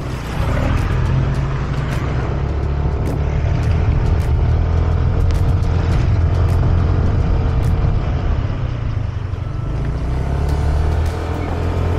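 Riding a motorcycle: loud wind rush on the action camera's microphone over the running engine, with a steady low rumble. An oncoming motor scooter passes close about half a second in.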